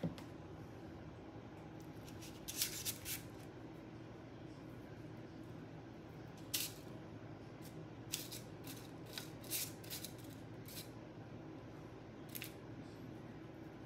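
A spoon scooping muffin batter from a mixing bowl and scraping it off into paper liners in a muffin tin: scattered short scrapes and clicks, clustered about three seconds in and again between about eight and eleven seconds, over a faint steady low hum.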